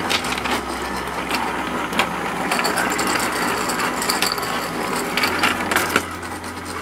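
Battery-powered toy fishing game running: its small motor and plastic gears turn with a steady rattling whir and many light clicks.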